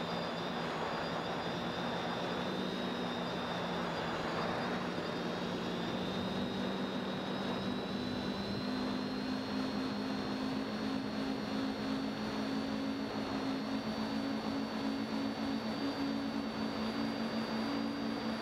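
Quadcopter's electric motors and propellers humming steadily in flight, heard close up from the drone's own camera, with wind rushing over the microphone. The hum rises slightly in pitch partway through.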